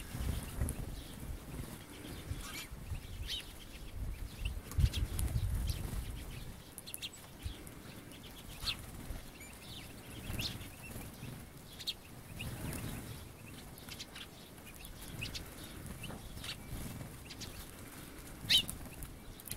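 Small birds at a hand-held seed feed: scattered short chirps and calls, with wing flutters as birds land on and leave the hand. A low rumble comes and goes underneath, loudest about five seconds in.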